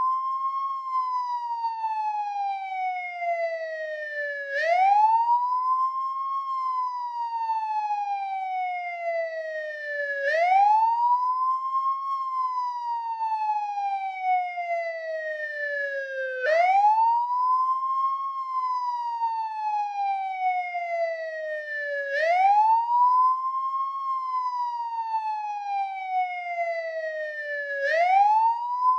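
American police car siren on the wail tone: each cycle rises quickly in pitch, then falls slowly, repeating about every six seconds.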